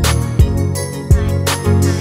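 Background music with a steady drum beat, about two beats a second, under sustained instrumental notes.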